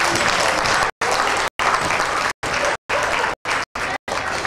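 Audience applauding, with the sound cutting out for a split second several times.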